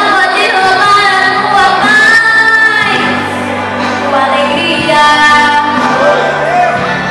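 A children's vocal group singing a hymn together into microphones, with electric guitar accompaniment holding steady chords underneath.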